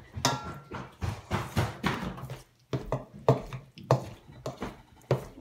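Dough being mixed in a stainless steel bowl: irregular knocks, scrapes and squelches of a spoon and hands working a soft butter-and-egg dough against the metal, several a second.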